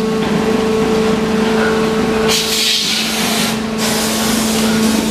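Injection moulding machine running with a steady hum. A loud hiss starts a little over two seconds in and lasts about a second and a half.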